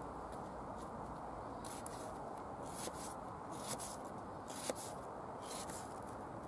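Knife slicing through a peeled onion on a plastic chopping board: a crisp cut about once a second, some ending in a light tap on the board, over a steady background hiss.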